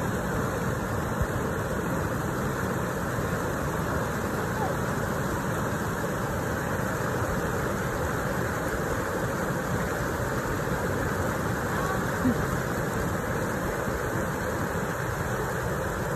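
Steady, even rush of a stream's flowing water.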